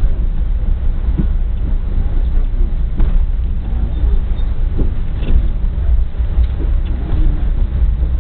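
Pakistan Railways passenger coach running at speed, heard from inside the carriage: a steady low rumble of wheels on rail, with a few sharp clacks as the wheels knock over the track.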